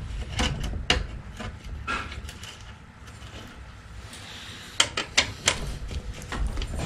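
Scattered metallic clicks and clinks of hand tools and bicycle parts being handled at the chain and crank during a bottom bracket repair, with a few sharper knocks about five seconds in.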